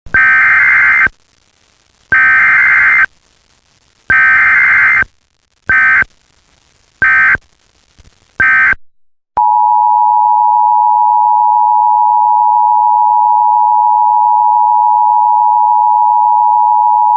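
Emergency Alert System tones, loud: three one-second bursts of warbling SAME data header a second apart, then three shorter bursts, followed about nine seconds in by the steady two-tone EAS attention signal held for about eight seconds.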